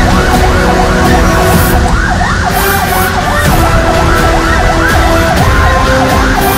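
Ambulance siren in a fast yelp, sweeping up and down in pitch a few times a second without a break, heard from inside the ambulance's cab over the low rumble of the vehicle on the road.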